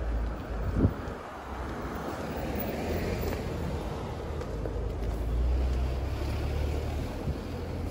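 Wind buffeting a handheld camera's microphone, a low rumble with the hiss of city street traffic beneath it. There is one sharp bump just under a second in.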